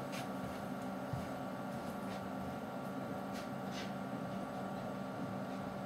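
Steady room tone: a low, even hum with a few faint clicks.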